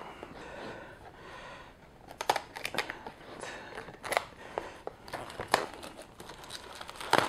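A knife slitting the clear plastic shrink-wrap on a small cardboard box, then the film being peeled off. A soft scratching comes first, then sharp crinkles and crackles from about two seconds in.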